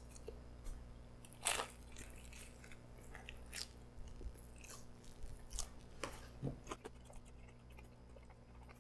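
A person chewing a mouthful of soft pretzel-wrapped hot dog, quietly, with scattered small crunching and wet mouth clicks.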